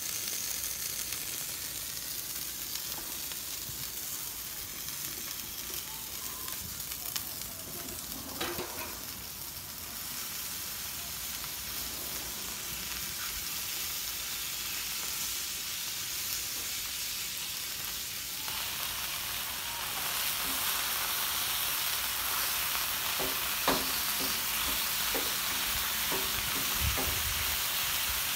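Ground beef sizzling on a hot Blackstone flat-top griddle, a steady hiss that steps louder about two-thirds of the way through. Near the end a spatula scrapes and knocks against the griddle a few times as the meat is chopped apart.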